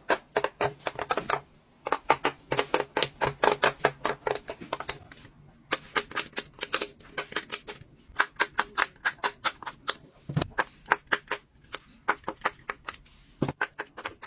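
Silicone pop-it fidget toys being popped by fingers: quick runs of small pops, several a second, broken by a few short pauses.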